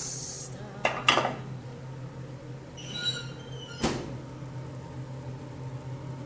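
Kitchenware being handled: two sharp knocks about a second in and another just before four seconds, with a brief high squeak about three seconds in, over a steady low hum.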